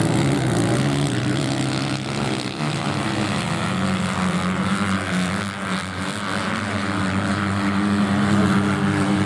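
Motocross bikes racing on beach sand, their engines running with a steady buzzing note. The note dips briefly a couple of times and grows stronger near the end.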